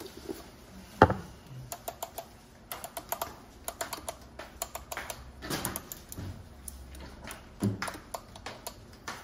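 Coffee beans being spooned from a small container into a cup: irregular sharp clicks and rattles of spoon and beans, with one louder clack about a second in.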